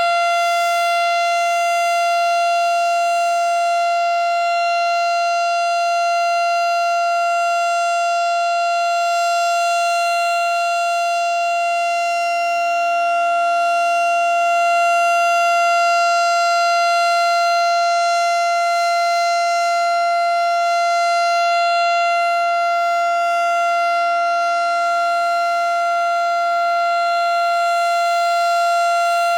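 Federal Signal STH-10 outdoor warning siren sounding a steady tone for a tornado drill test. The pitch holds level with no rise or fall.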